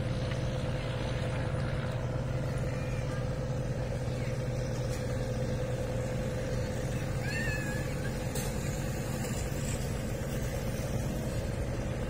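Steady drone of a boat engine running, holding one even pitch. A short, high, wavering cry rises over it about two-thirds of the way in.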